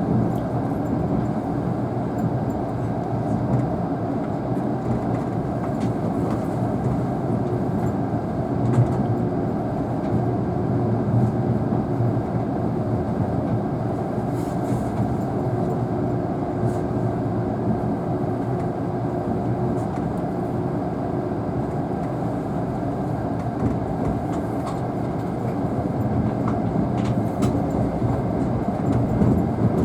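Tobu N100 series Spacia X limited express train heard from inside the passenger cabin: a steady rumble of wheels on rail and running gear, with a few faint clicks and a faint steady hum for several seconds midway.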